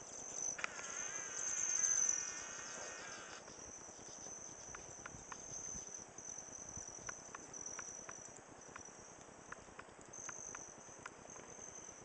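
Steady high-pitched chirring of insects such as crickets. For about three seconds near the start, a louder wavering high-pitched sound with several tones rises over it. Faint sharp clicks are scattered through the rest.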